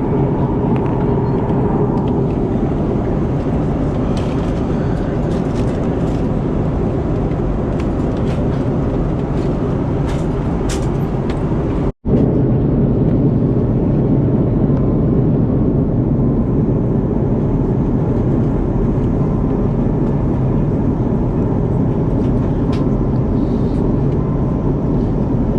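Steady rumble of an Airbus A330-200's cabin in flight: engine and airflow noise, with a few faint clicks. The sound cuts out for an instant about twelve seconds in, then carries on the same.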